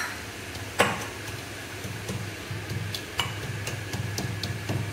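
Whole cardamom pods being pounded with a pestle: a few sharp knocks, the loudest about a second in and another about three seconds in, with lighter taps between, over a low steady hum.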